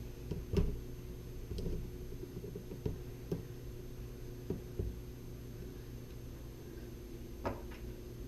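Several light knocks and clicks, about seven scattered over a few seconds, the loudest about half a second in, over a steady low hum.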